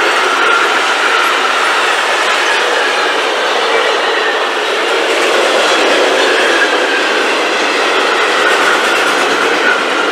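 Long freight train passing close by, a steady loud rumble and rattle of wheels on rails. First sliding-wall boxcars go by, then empty double-deck car-transport wagons, with a faint wavering high tone over the rumble.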